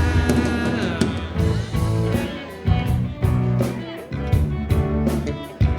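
Live rock band playing an instrumental passage between vocal lines: guitar to the fore over bass and drums.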